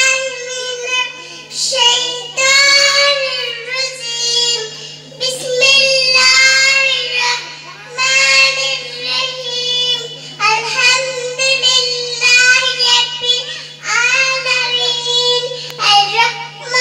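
A young girl singing solo and unaccompanied into a microphone, in long held phrases with short breaks between them, over a steady low hum.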